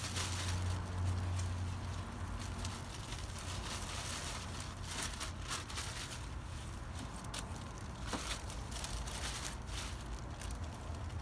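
Thin plastic bag crinkling and kale leaves rustling as handfuls of loose kale mix are stuffed into the bag, in irregular crackles over a low steady rumble.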